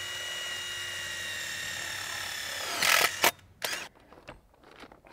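Ridgid cordless drill running at a steady high whine as it bores through a metal pipe, winding down a little under three seconds in. A loud, brief clatter follows, then a few sharp clicks.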